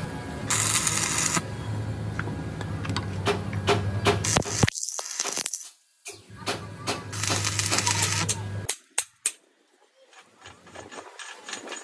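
Workshop metalworking: many rapid sharp taps and clinks over a steady low machine hum, which cuts off abruptly a few times.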